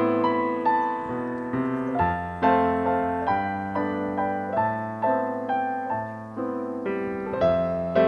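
Gentle piano background music, single notes and chords struck at a slow, even pace and left to ring.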